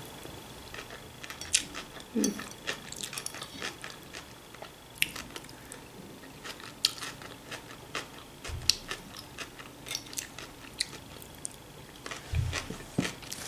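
A person chewing raw cabbage, cucumber and bell pepper salad close to the microphone, with scattered short crunches and clicks from the fork and mouth.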